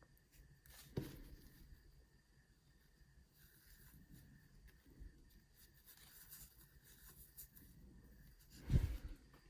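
Faint rubbing and handling noise from hands working on small objects, with a sharp knock about a second in and a louder dull thump near the end.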